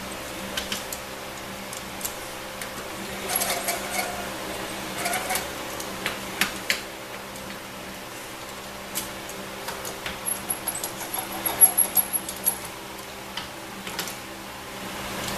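A speed handle with a socket turning the bolts on an automatic transmission valve body: scattered light metallic clicks and ticks, with a quick run of clicks about ten to twelve seconds in.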